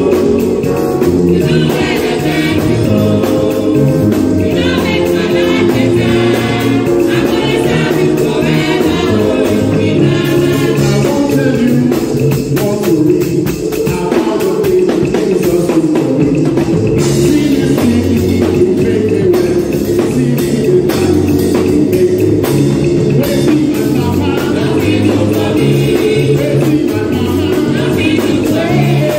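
Gospel worship music: a group of voices singing with a band, a drum kit played along throughout.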